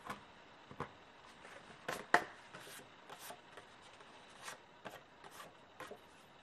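A sheet of cardstock being handled and moved over a stamping platform: scattered light rustles, scrapes and taps of paper against the board, the loudest a pair of taps about two seconds in.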